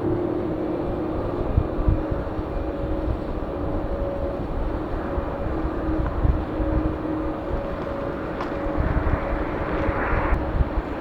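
Jet airliner engines rumbling steadily, with a faint steady hum. A rushing hiss swells for the last couple of seconds and then cuts off suddenly.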